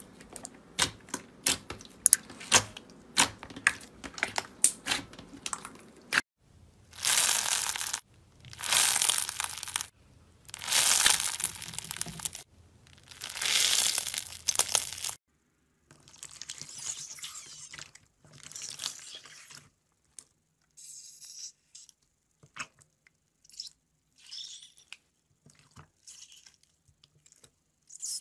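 Hands working slime. First comes a quick run of sharp clicks and pops as clear slime is pressed flat, then four long crunching squeezes of a grainy crunchy slime in a fist, then fainter, scattered squishes.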